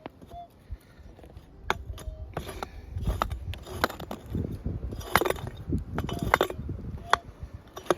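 Rapid scraping, knocks and sharp clinks of a metal hand tool digging among stones and gravel, busiest in the middle.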